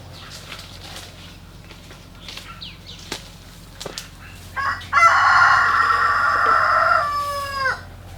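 A rooster crowing once: one long, loud call starting a little under five seconds in, its pitch falling away at the end.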